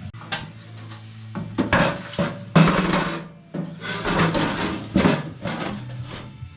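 Metal parts clattering and scraping, in several separate knocks and rubs of a second or less each, over a low steady hum.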